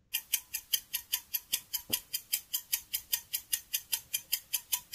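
Clock ticking sound effect of a quiz countdown timer, an even run of sharp ticks at about five a second, marking the seconds left to answer.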